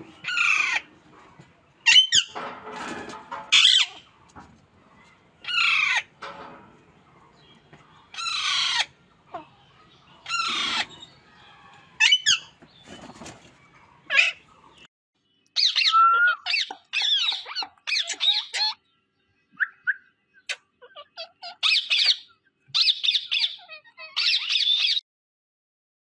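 Rose-ringed parakeets calling: loud harsh screeches about every two seconds, many falling in pitch, then a quicker run of wavering chattering calls in the second half that stops shortly before the end.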